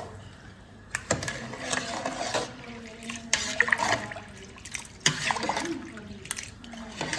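Water splashing and pouring, with irregular clinks and knocks of a pot or utensils.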